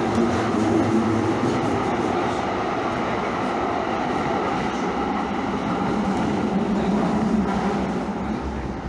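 Calgary CTrain light-rail train running along the track: a steady rumble of wheels and running gear with a low hum.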